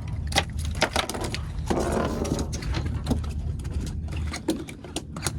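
Irregular knocks and scrapes on a fishing boat over a steady low engine hum, with a short rushing noise about two seconds in.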